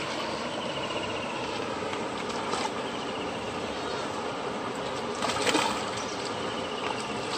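A hooked rohu thrashing and splashing at the water's surface as it is played in to the bank, with one louder splash a little past the middle, over a steady rushing background.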